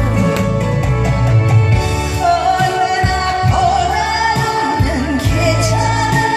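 Live amplified song: a female singer's voice over backing music with a steady beat, holding long notes from about two seconds in.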